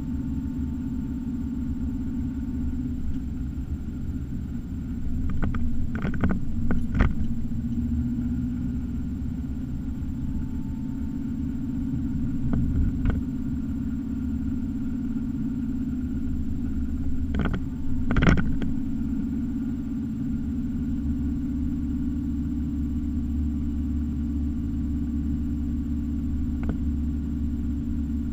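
Car driving, heard from inside the cabin: a steady low rumble of engine and tyres on the road. A few short knocks come in two clusters, about a quarter and two thirds of the way through.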